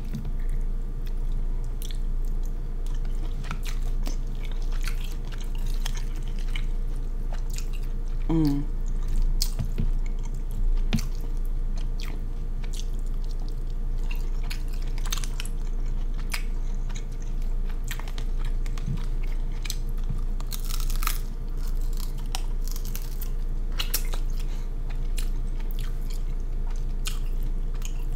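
Close-miked chewing and mouth smacking while eating king crab leg meat, with many sharp clicks and crunches throughout.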